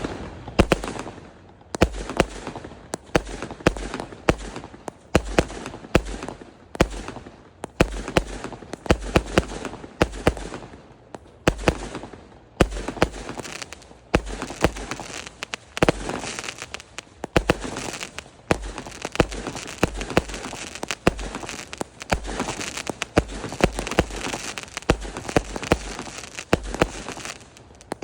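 A 0.8-inch, 138-shot fireworks cake firing in rapid succession: sharp bangs from the shots launching and bursting, several a second, with a noisy haze between them.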